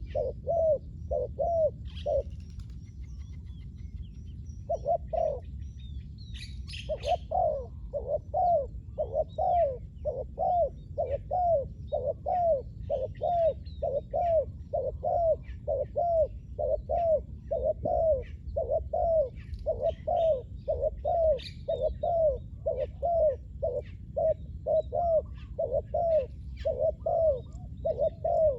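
Spotted dove cooing in a long series of short, evenly repeated notes, about two a second, after a brief pause near the start. Faint chirps of other small birds sound over it.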